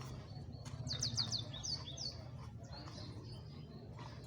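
A bird chirping: a quick run of short, high, falling notes about a second in. A steady low hum runs underneath.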